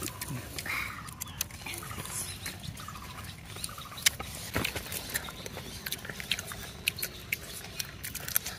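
Irregular small clicks and smacks of eating by hand: a child picking at foil-baked fish with his fingers and chewing, over a faint steady low background.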